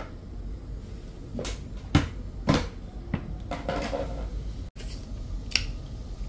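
Dishes and bowls being handled and set down: about five sharp knocks and clinks, the loudest about two seconds in, with a short scrape in between, over a low steady hum.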